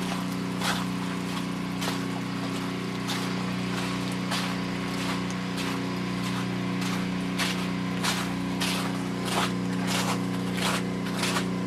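A steady motor hum like a small engine running, with crisp crunching footsteps on icy ground about once or twice a second.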